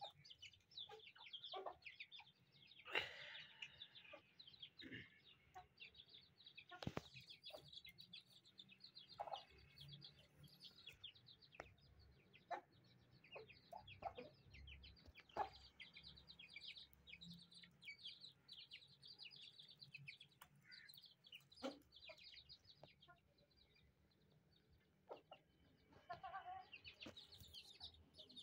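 Aseel chickens: chicks peeping in a dense, continuous run of faint, high chirps, with adult hens giving occasional low clucks.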